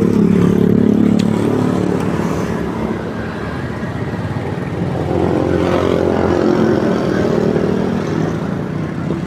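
Road traffic: motor vehicles, most likely motorcycles, running past on the road. One passes just at the start, and a second swells up and fades away between about five and eight seconds in.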